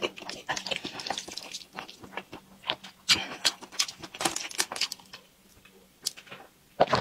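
Close-miked eating sounds: wet chewing, smacking and slurping of stir-fried noodles, heard as many quick clicks and crackles, with a short drink from a plastic bottle near the end.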